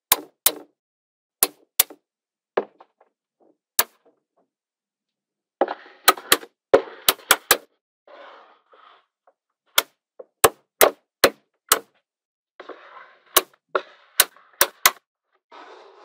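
Small neodymium magnetic balls snapping together as blocks of them are pressed onto a magnet-ball wall: about twenty sharp clicks at irregular intervals, some in quick runs, with softer rattling of balls shifting against each other in between.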